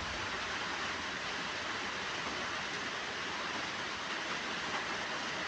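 Steady, even hiss of background noise with no rhythm or change.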